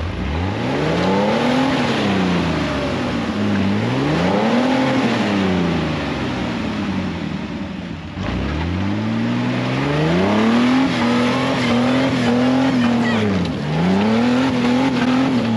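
Jeep Wrangler TJ engine revving up and down on an off-road trail, its pitch rising and falling several times. The sound drops out for a moment about halfway through, then climbs again and holds high for a few seconds before dipping and rising once more.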